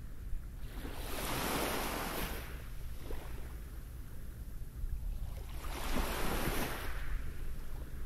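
Small waves washing up a pebble beach twice, each wash a swelling hiss, one starting about a second in and another a little past five seconds.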